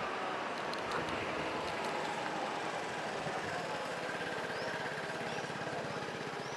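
Steady street traffic noise with a vehicle engine idling close by.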